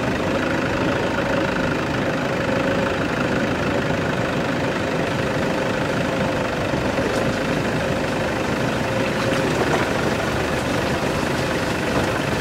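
Car engine running steadily at low speed while the car crawls over a muddy, rutted road, with a held tone that fades about nine seconds in.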